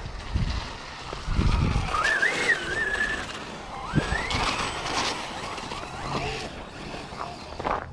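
Brushless motor of an Arrma Mojave 4S RC monster truck whining as the truck spins its wheels in snow, the pitch rising and falling with the throttle.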